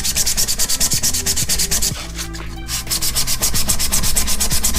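Fine 400-grit sandpaper rubbed by hand over a 3D-printed part in quick back-and-forth strokes: dry sanding to take the rough print surface off. The strokes ease off briefly about two seconds in, then pick up again.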